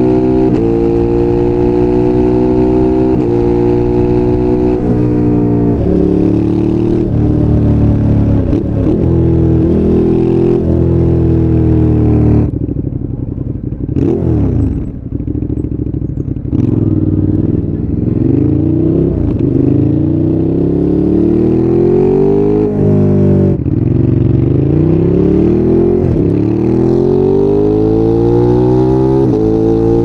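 Ducati Monster 821's L-twin through a QD slip-on muffler, heard from the rider's seat. It runs hard at speed with a few gear changes. About halfway through it comes off the throttle and goes quieter for a few seconds, then accelerates again, its pitch rising through the gears with two shifts.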